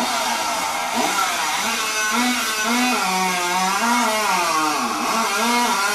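Two-stroke chainsaw running at high revs through a cut, its pitch repeatedly sagging under load and climbing back, with its deepest dip about five seconds in.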